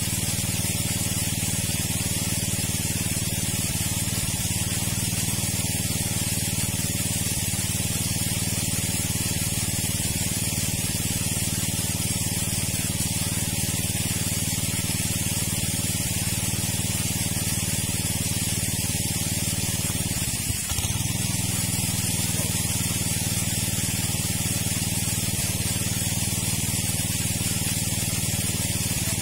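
Steady rushing noise over a low hum: a motor-driven water pump running and water gushing from its outlet while draining the pond. The hum dips briefly about two-thirds of the way through.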